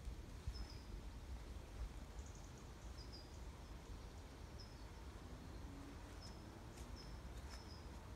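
Faint outdoor ambience: a small bird gives about six short, high, slightly falling chirps spaced a second or so apart, over a low steady rumble.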